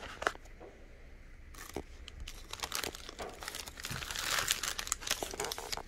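Plastic wrappers of Popsicle ice pops crinkling and crackling as they are handled, busiest about four seconds in.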